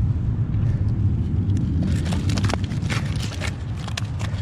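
A steady low rumble, with a cluster of sharp clicks and knocks about two to three and a half seconds in as two sheepshead and a landing net are handled on concrete.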